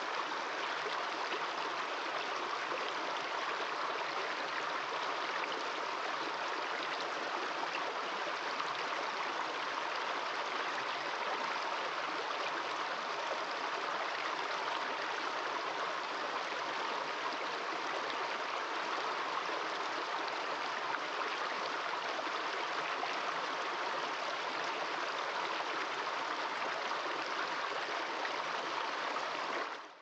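A small rocky stream running over a low cascade of stones: a steady rush of flowing water that fades out at the very end.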